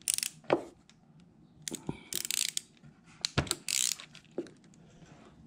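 Quarter-inch drive ratchet clicking in short bursts, with metal clinks from the 8 mm socket, as the oil filter cover bolts are worked loose.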